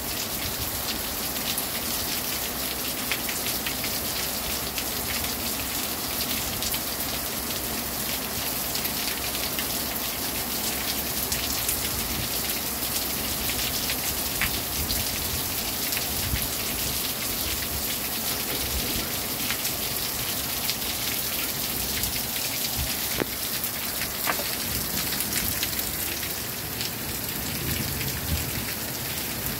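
Torrential thunderstorm downpour: a steady hiss of heavy rain, with many short sharp ticks from nearby drops striking.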